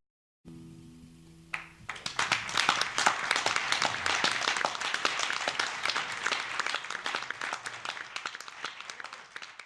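An acoustic guitar's last notes ring for a moment, then an audience applauds for several seconds, the clapping thinning out near the end.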